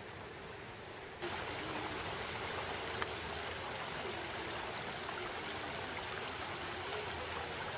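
A small woodland stream running over rocks and riffles: a steady babble of water, louder from about a second in. One short click about three seconds in.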